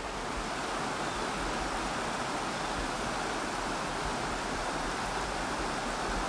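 Steady rushing of a rocky mountain stream running over a riffle and small cascade.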